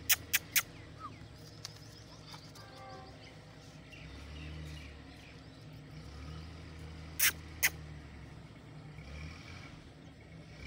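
Sharp clicks: three in quick succession at the start and two more about seven seconds in, over a low hum that comes and goes.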